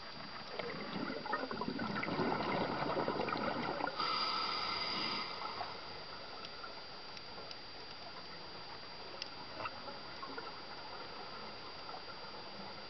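Scuba breathing heard underwater: a diver's exhaled bubbles burble out through the regulator for about three seconds, followed by a short hiss of inhalation through the regulator, then quieter water noise with scattered faint clicks.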